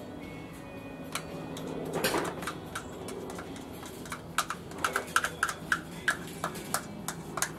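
Kitchen utensil tapping and clicking against a container while sauce is measured into a bowl. There is a soft knock about two seconds in, then a quick run of sharp light taps, about three a second, over the last few seconds.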